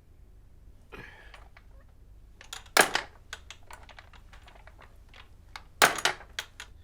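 Quick, irregular clicks and taps like typing on a computer keyboard, with two much harder knocks about three seconds apart.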